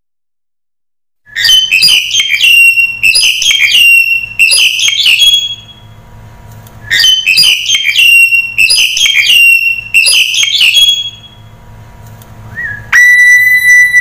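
Black-collared starling calling: two bursts of loud, harsh, rapid chattering notes about five seconds apart, then a long steady whistled note near the end.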